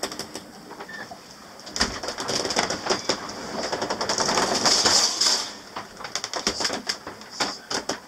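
Creaks, clicks and knocks inside a small sailboat's cabin as it works in rough seas, with a louder rushing surge from about two to five and a half seconds in.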